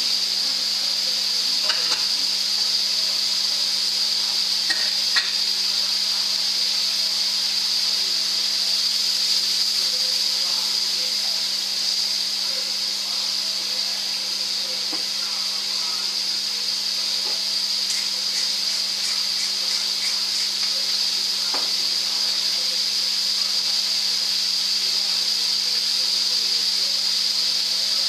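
Mushrooms and leeks sizzling steadily in a frying pan, with a few knocks and a short run of quick taps from a wooden spatula stirring them.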